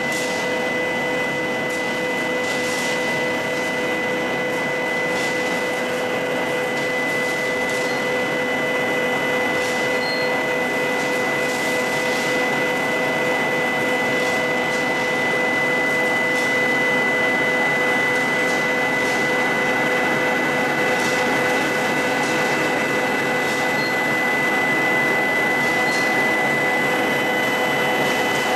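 Cold-rolled rebar production line machinery running: a steady whine from electric motors and drives, with a constant high tone over it and a few faint metallic clicks.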